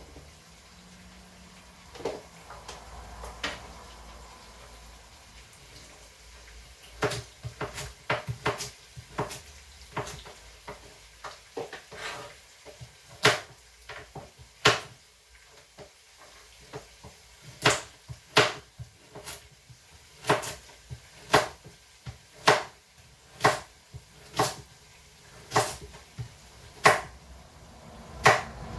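A series of sharp kitchen knocks from utensils being worked, sparse at first and then settling into a steady rhythm of about one a second.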